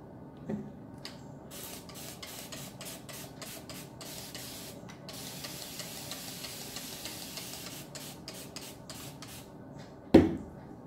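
Hands rubbing and raking product through a section of wet curly hair close to the microphone, a quick run of rubbing strokes with a steadier hiss in the middle. A loud knock near the end.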